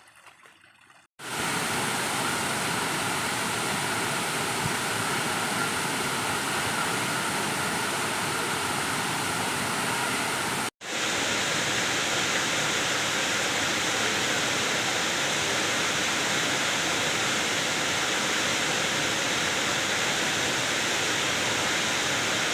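Waterfall pouring: a steady, even rush of water that comes in abruptly about a second in and breaks off for an instant near the middle.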